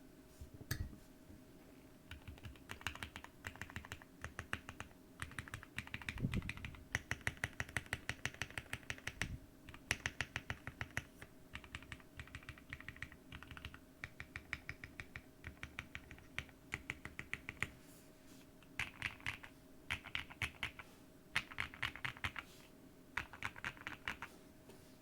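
Typing on a custom 60% mechanical keyboard with lubed, filmed Gateron Ink Black linear switches in a polycarbonate plate and PBT keycaps: runs of fast keystrokes broken by short pauses. There is one deeper thud about six seconds in, over a faint steady hum.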